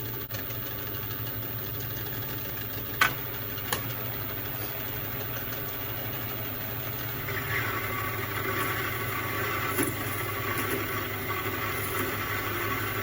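Milling machine spindle running at its faster speed, with two sharp clicks about three seconds in; from about seven seconds in the cutter bites into the workpiece, taking a roughing cut with a rougher, grinding cutting noise over the motor hum.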